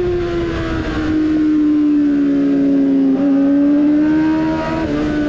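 Yamaha R6 600 cc inline-four racing engine running at high revs, heard from on board the bike: its loud, steady note sinks slowly over the first few seconds, then holds almost level with a brief dip about three seconds in.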